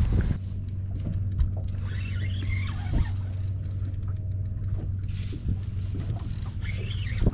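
Outboard motor idling with a steady low hum under light wind and water hiss, with a single light knock about three seconds in.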